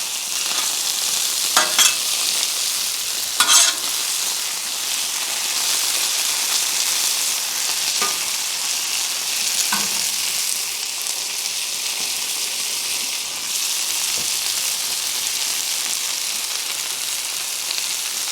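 Chicken thigh pieces sizzling steadily on a hot Blackstone flat-top griddle, with a few short spatula scrapes as they are pushed together, the loudest about two seconds and three and a half seconds in.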